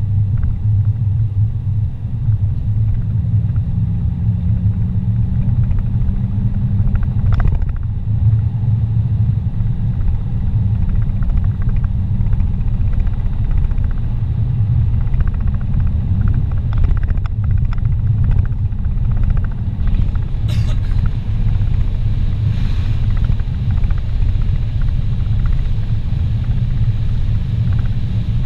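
Steady low rumble of a car's engine and tyres at highway speed, heard from inside the cabin.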